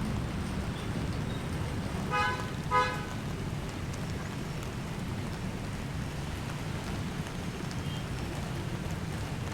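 A vehicle horn toots twice in quick succession, two short blasts about half a second apart, over a steady rushing background noise.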